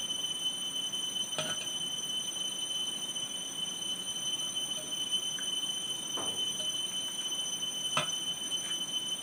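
A steady high-pitched whine over a low background hiss, broken by a few sharp clicks of a metal spatula against a cooking pot, one about a second and a half in and a louder one near the end.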